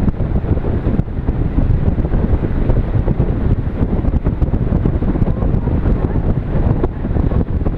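Heavy wind buffeting the microphone: a loud, constant low rumble with rapid flutter.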